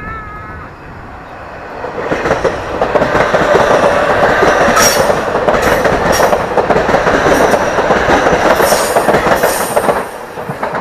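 JR Kyushu 817 series electric train passing close by. Its running noise builds over the first two seconds or so, stays loud with a few sharp wheel clacks, and drops away near the end.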